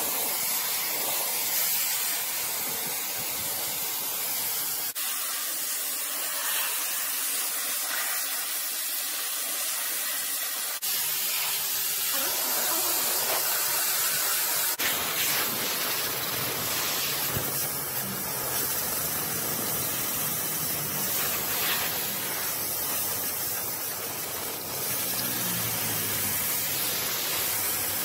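Steady hiss of a pressurised water spray jet rinsing an air conditioner's coil fins, changing abruptly a few times.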